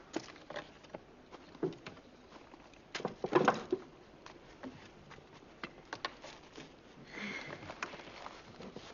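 Scattered light knocks, taps and clatters of wooden pieces being handled and set down on a rough wooden bench. The loudest cluster of knocks comes about three seconds in, and there is a brief rustle near the end.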